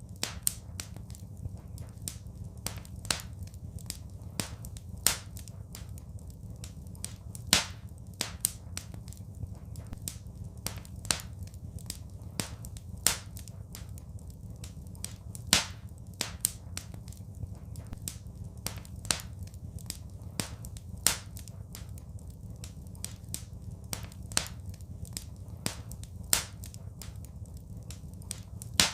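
Wood fire crackling in a fireplace: irregular sharp snaps and pops, a loud one every couple of seconds and many smaller ones between, over a steady low rumble.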